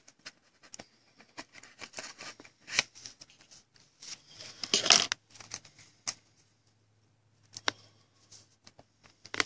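Light clicks and scrapes of a trading card being handled in a rigid plastic top loader, with a louder rustling scrape about five seconds in.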